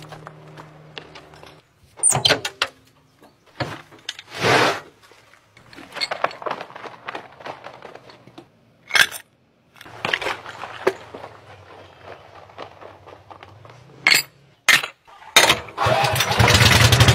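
Scattered knocks and rustling, then near the end a small engine in a water-delivery truck's compartment starts and runs loudly and steadily.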